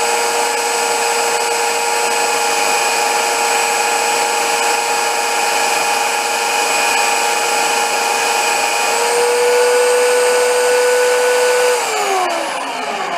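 Electric belt sander running steadily, sanding small wooden blocks, with a constant motor whine. About nine seconds in its pitch rises slightly. Near the end it is switched off and winds down, the whine falling away.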